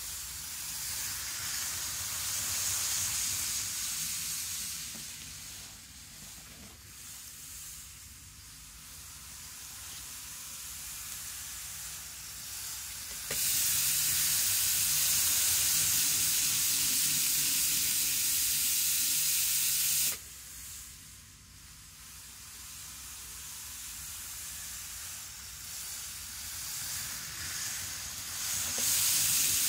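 Microace N gauge model train of the 783 series running on the track: a steady high hiss of wheels on rail over a low motor hum, growing and fading as the cars pass. Partway through, a louder stretch of the same hiss starts abruptly and cuts off just as suddenly several seconds later.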